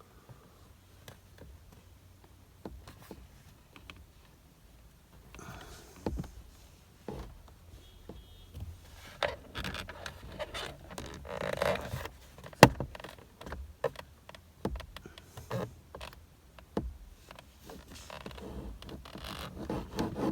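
Scattered clicks, knocks and scrapes of hands and tools working at a car's steering wheel and airbag, starting after about five quiet seconds, with one sharp click about halfway through.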